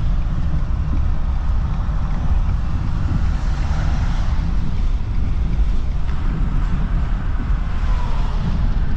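Wind buffeting the microphone: a steady, loud, low rumble that flutters irregularly.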